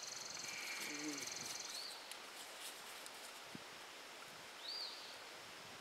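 Faint outdoor background: a steady, finely pulsing insect buzz that stops about two seconds in, and two short high bird chirps a few seconds apart.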